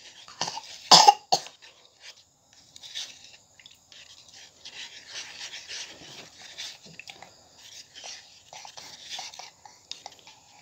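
A few short coughs about a second in, followed by faint rustling.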